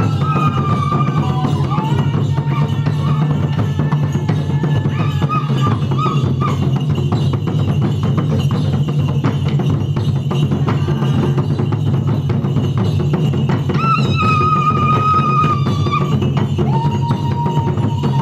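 Ugandan traditional drum music: dense, fast drumming on ngoma-style drums, with long high notes held over it now and then.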